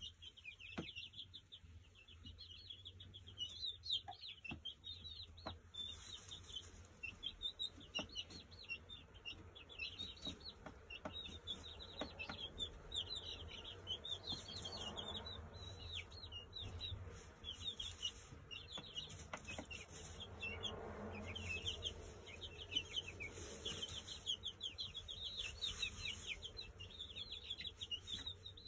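A small flock of young pullets peeping constantly, a dense chatter of many short, high, falling chirps, with a few faint clicks underneath.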